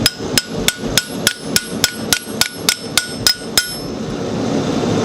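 Hand hammer striking a U-shaped chisel to groove a hot steel bar on the anvil: a steady run of about three ringing blows a second, stopping about three and a half seconds in and leaving a steady rushing background.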